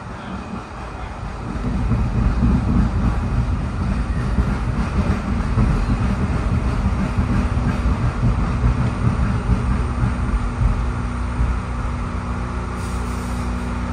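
PATCO Speedline rapid-transit car moving through an underground station, heard from inside the front car: a steady low rumble of wheels on rail and running gear that gets louder about a second and a half in. A steady hum joins in during the second half.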